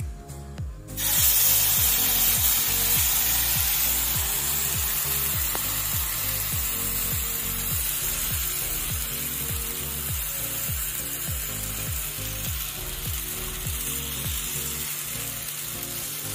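Spinach-semolina chilla batter sizzling on a hot greased non-stick tawa. The sizzle starts suddenly about a second in, as the batter meets the pan, then slowly dies down as it is spread. Background music with a steady low beat plays underneath.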